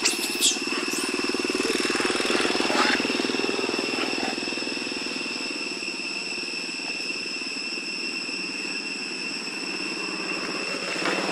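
A steady low engine-like hum with a fast, even pulse, as of a motor idling, under a continuous high-pitched buzzing drone. Right at the start come a couple of short, sharp high squeals.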